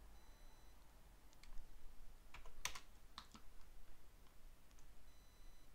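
Faint computer keyboard keystrokes and clicks as a value is typed in: a few scattered taps, the loudest about two and a half seconds in.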